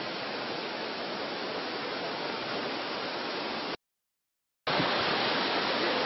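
Steady rush of the Ouzoud waterfalls, an even roar of falling water. It cuts out to silence for about a second just past halfway, then returns slightly louder.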